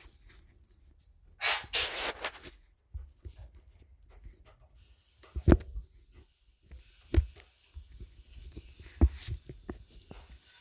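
Pancake batter sizzling faintly in a hot pan, with three sharp knocks of a utensil against the pan. A loud rush of noise lasting about a second comes near the start.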